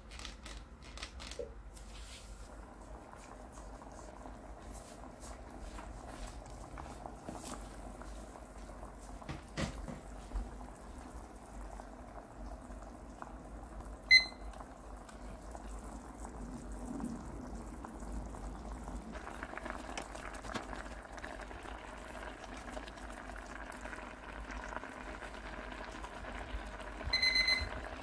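Water heating and boiling in a small electric cooking pot, a steady bubbling hiss that grows louder about two-thirds of the way through. A digital kitchen timer gives one short beep as it is set about halfway through, and near the end its alarm starts beeping repeatedly.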